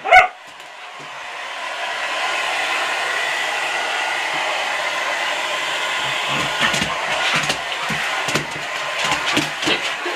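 Hair dryer blowing steadily on a dog, its noise building over the first two seconds and then holding. A single short dog bark comes right at the start, and irregular low thumps join the dryer's noise from about six seconds in.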